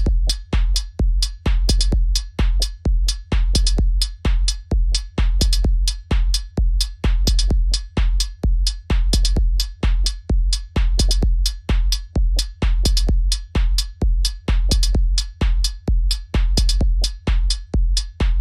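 Experimental techno from a Denon Prime DJ unit and a Maschine Plus groovebox: a deep kick drum in a steady driving pattern, with sharp clicking percussion on top.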